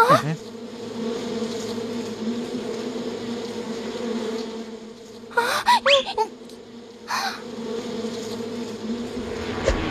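Cartoon sound effect of a locust swarm buzzing: a steady droning hum. A short rising squeal-like sound cuts in about five and a half seconds in.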